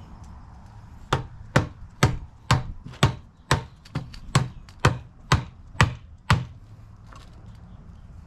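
Rubber mallet striking the top of a PVC pipe fitting about twelve times, roughly two blows a second, driving the fitting down onto the pipe. The blows start about a second in and stop a little after six seconds.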